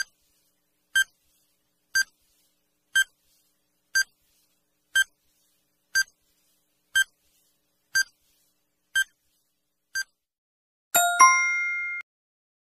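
Quiz countdown timer sound effect: a short electronic beep once every second, eleven in all, then about eleven seconds in a louder chime of several ringing tones that fades over about a second, signalling time is up.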